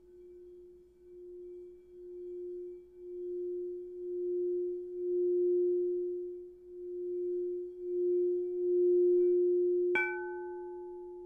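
Singing bowl played by circling its rim: one low steady tone that swells and dips about once a second, growing louder. Near the end the bowl is struck once, adding a bright ring of higher overtones that dies away while the low tone rings on and fades.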